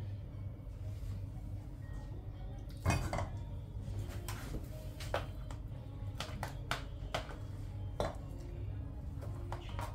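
Raw chicken drumsticks set into an empty stainless steel pot with a knock against the metal, followed by a series of sharp clinks and knocks as a metal spoon scrapes grated onion into the pot. A steady low hum runs underneath.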